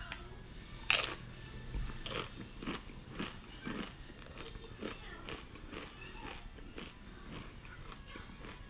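A person biting and chewing a crisp tortilla chip (the Paqui One Chip Challenge chip). There is a loud crunch about a second in and another about two seconds in, then a run of smaller irregular crunches as the chewing goes on.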